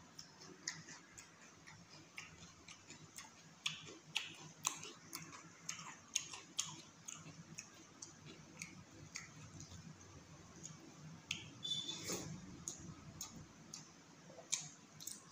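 Close-miked mukbang eating sounds: wet mouth clicks and smacks from chewing chicken curry and rice, with fingers squishing and mixing the rice, in irregular short clicks.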